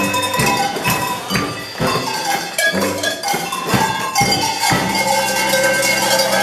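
A set of tuned cowbells is shaken and struck in a quick, rhythmic polka melody. Each note rings briefly. About three-quarters of the way through, a long low note sets in and is held, like the closing chord of the tune.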